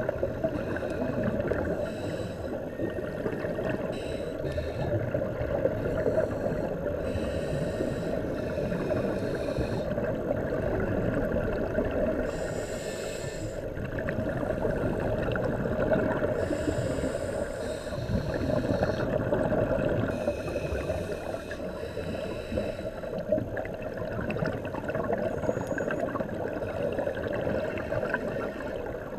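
Underwater noise heard through a dive camera's waterproof housing: a steady, muffled low rush, broken every few seconds by brief hissing and bubbling from a scuba diver's regulator and exhaled bubbles.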